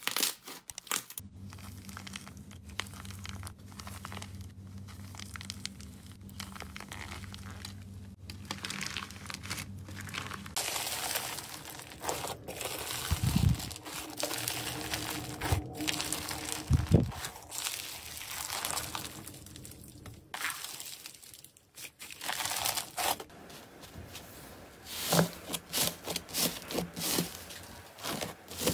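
Slime being squeezed and pulled by hand, crinkling, crackling and tearing. It includes a pink slime with a hard cracked coating crunching as it breaks, and foam-bead slime crunching as fingers dig in.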